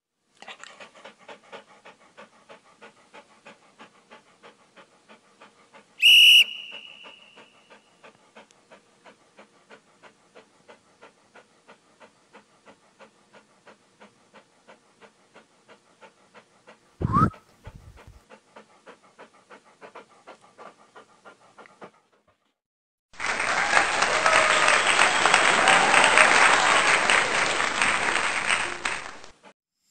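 A dog panting, soft quick breaths about three a second, for most of the time. About six seconds in there is a sharp strike with a ringing tone, and later a short rising whistle with a thump. Near the end comes about six seconds of applause.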